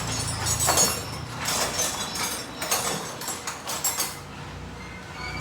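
Irregular clinks and knocks of metal tools and parts being handled during car suspension and steering repair.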